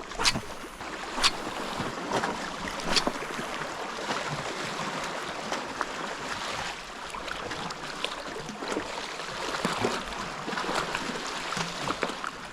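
Sea water washing and lapping against rocks, a steady rushing hiss, with a few sharp clicks or knocks in the first few seconds.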